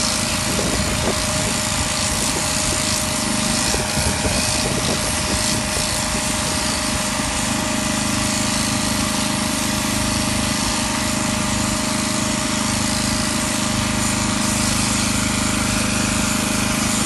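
Electric shearing handpiece running steadily as it cuts through llama fleece, a continuous mechanical buzz.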